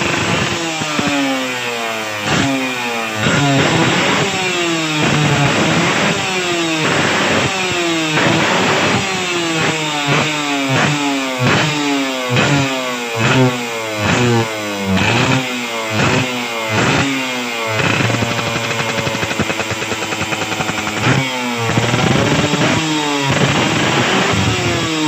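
Yamaha TZM 150 single-cylinder two-stroke engine revved in quick, repeated throttle blips, each a sharp rise in pitch that falls straight back, with a steadier held rev about three quarters of the way through.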